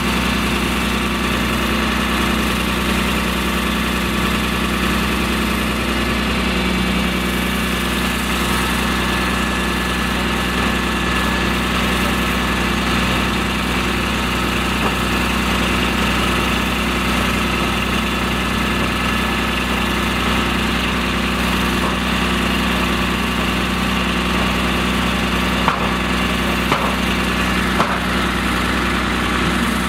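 Fire engine's motor running steadily as it drives the pump feeding the hose onto a burning car. Three short sharp cracks near the end.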